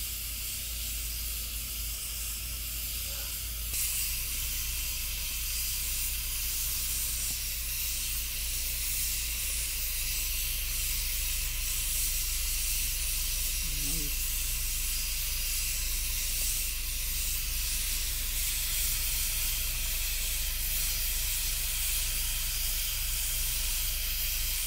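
Afghan kazan aluminium pressure cooker on a wood fire letting steam out through its valve: a steady hiss that gets louder about four seconds in, as it cooks under pressure.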